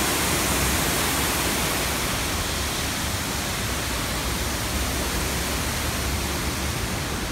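Steady rush of a waterfall spilling down a rock face, slowly growing fainter.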